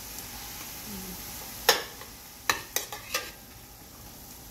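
Onions, garlic, ginger and chopped tomatoes sizzling in a stainless steel pot as a metal spoon stirs them. The spoon knocks sharply against the pot four times, the loudest just under two seconds in.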